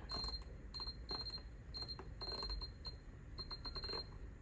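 DC programmable electronic load beeping as its setting knob is turned: short high beeps in irregular runs, with faint clicks.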